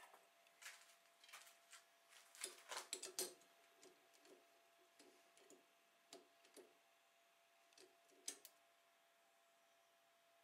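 Faint, scattered light clicks and metallic taps of tools and the workpiece being handled at a stopped lathe, a busier cluster about two and a half seconds in, a few single ones later, stopping after about eight seconds. A faint steady tone runs underneath.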